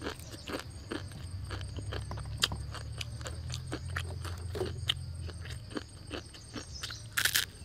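Close-up crunching and chewing of dry, uncooked noodles: a quick, irregular run of crisp cracks, with a longer, louder crackle about seven seconds in.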